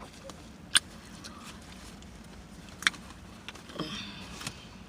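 Close-miked mouth sounds of eating: a few sharp, wet lip smacks, a second or two apart, over quiet chewing.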